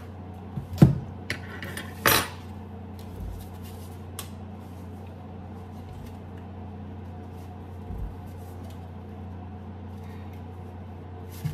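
A few sharp knocks and clatters of kitchen containers and utensils on a countertop, the loudest about a second in and another about two seconds in, then only a few faint taps over a steady low hum.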